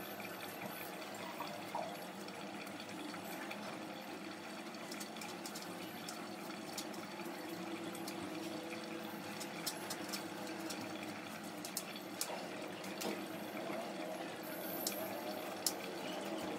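Steady rush of running water, with scattered light clicks and a few small knocks.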